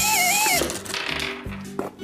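Upbeat background music with a steady bass beat; a high wavering tone glides down and stops about half a second in.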